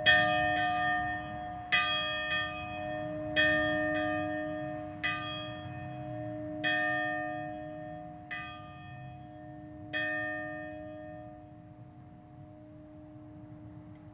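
The four smaller Ambrosian church bells, cast by Angelo Bianchi of Varese in 1928, ringing in full swing as they come to rest. The strokes come about every second and a half, some in close pairs, and grow weaker and sparser. The last stroke falls about ten seconds in, and its ringing and hum die away.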